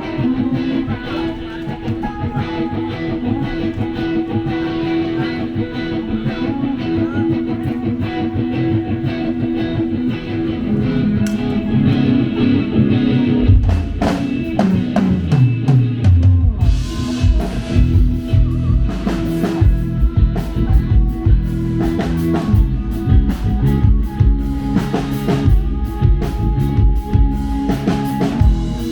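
Live rock band playing instrumentally at a soundcheck: electric guitar alone at first, then bass and drum kit come in about halfway through with a steady beat.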